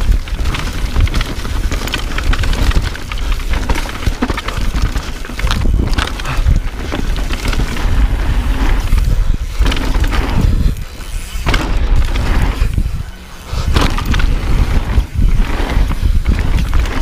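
Mountain bike riding fast down a dirt singletrack: wind buffets the helmet or chest camera's microphone with a heavy rumble, over tyre noise and the bike's chain and frame rattling on bumps. The noise eases briefly twice near the middle.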